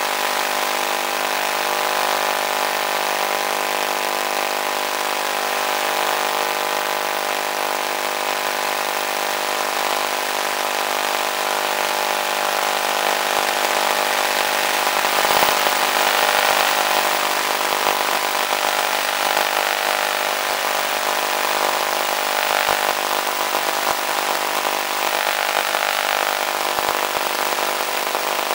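Onboard sound of a model plane's electric motor and propeller running steadily under power, a droning whine over the rush of airflow, slightly louder for a moment about halfway through.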